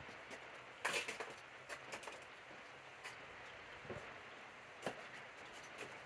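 Low steady hiss with a handful of light, sharp clicks and knocks, the loudest cluster about a second in and single ones spread through the rest.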